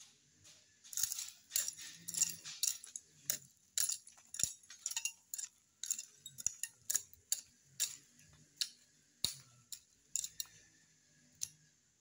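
Machete blade striking and scraping as it works into dirt, a quick, irregular series of sharp clicks and taps that stops near the end.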